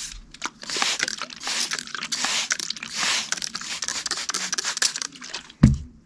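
A steel knife edge scraping in quick, rasping strokes across a water-lubricated sharpening stone, ending in a single heavy thump about five and a half seconds in.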